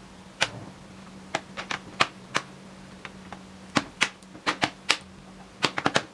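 Plastic bottom cover of an Acer Aspire 5 laptop being pressed back onto the chassis, its snap clips clicking into place in a string of sharp, irregular clicks, some coming in quick clusters.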